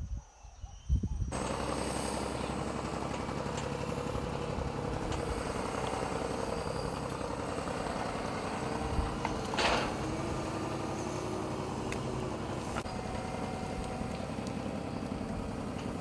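Engine of a crawler crane working a clamshell grab bucket to desilt a dam, running steadily, starting about a second in. A short, sharp noise breaks in near the middle.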